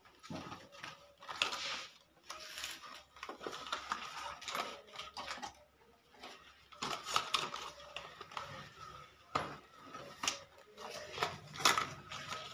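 Scattered light plastic clicks and clatter as 9-watt LED bulbs are taken from their cardboard cartons and fitted into and out of a plastic socket test board, with some rustling of the packaging.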